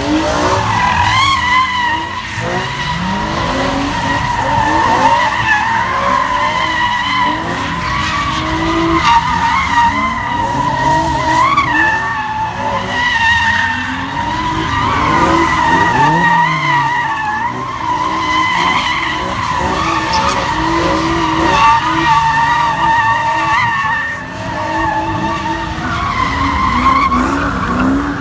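Car tires squealing continuously under wheelspin, the screech wavering in pitch, with the engine revving underneath.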